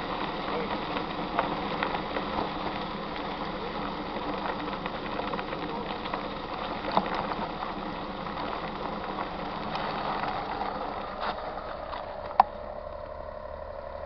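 Mountain bike rolling over a dirt road: steady tyre and gravel noise with scattered rattles and knocks from the bumps, and one sharp knock about twelve seconds in. Just before it the rolling noise drops away and a steady whir begins.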